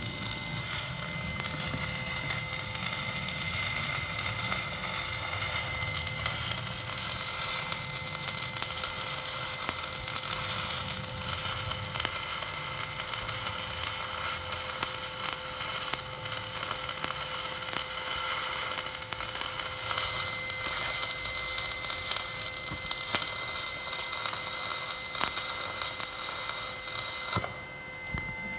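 Electric arc welding: the arc crackling and sizzling steadily, then cutting off suddenly about a second before the end.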